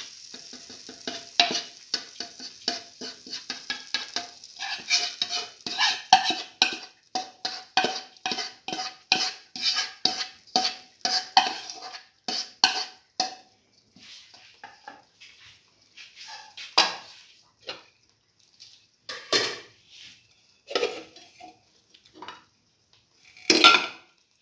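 A metal spoon scraping and knocking against metal cookware about two to three times a second, with a faint ringing tone, as the pancake batter is worked in the pan. After about 14 seconds the strokes thin out to scattered single knocks, the loudest near the end.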